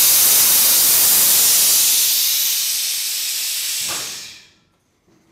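Air-ride suspension dumping air: a loud hiss of air escaping from the air bags as the truck is lowered all the way down (slammed), slowly weakening and dying away about four and a half seconds in.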